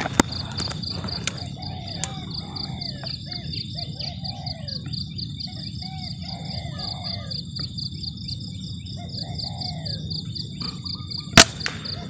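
Crickets trilling steadily, with bird calls through the middle, then a single sharp shot from an uklik PCP air rifle near the end: the shot that hits the spotted dove.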